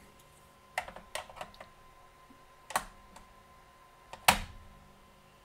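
Scattered light clicks and taps of hands handling a steel digital caliper against an external DVD drive, with the sharpest knock about four seconds in.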